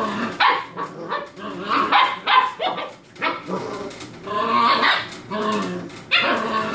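A litter of young puppies yipping and barking in short, overlapping calls as they play and tussle.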